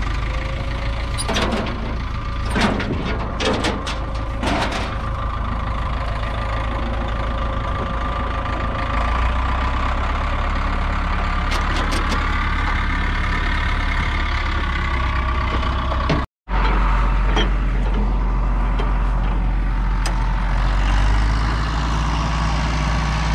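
1937 Allis-Chalmers Model M crawler's 4.9-litre four-cylinder petrol/TVO engine idling steadily, with a few sharp clicks and knocks in the first few seconds.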